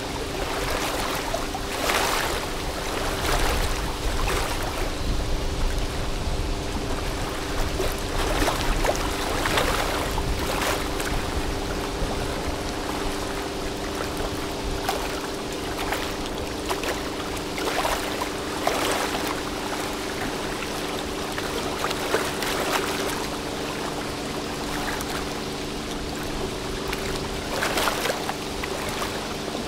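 Water splashing and lapping in irregular surges over a steady hum of ship engines, several held tones that do not change.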